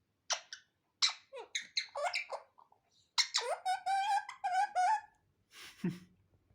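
Pet parrot squawking: a run of short, harsh calls, then a longer wavering screech about three seconds in, and one more squawk near the end. It is an angry protest at being petted.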